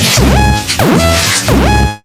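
Loud electronic music with a heavy bass and pitch sweeps that rise and fall across each other, repeating several times.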